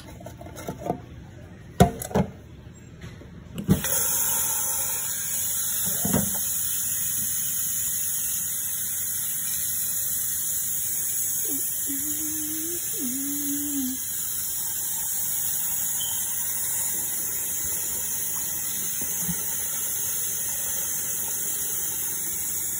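Kitchen tap running a steady stream of water into a metal pot in a stainless steel sink, thawing frozen fish under the running water. A few knocks and clicks come before the water starts about four seconds in, and a short two-note squeak sounds near the middle.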